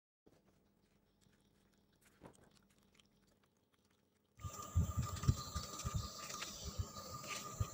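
Scissor blades chopping and mashing water-soaked egg-tray paper pulp in a cup: irregular soft, wet thumps and squelches. They start suddenly about four seconds in, after a few faint clicks.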